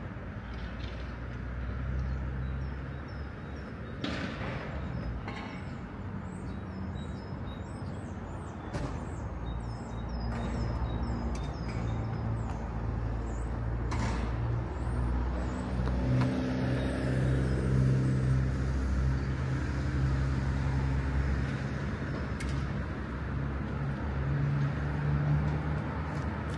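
Street traffic: a steady low hum of motor vehicle engines, such as a bus or lorry running, growing louder after about sixteen seconds. Short high chirps come and go in the first ten seconds.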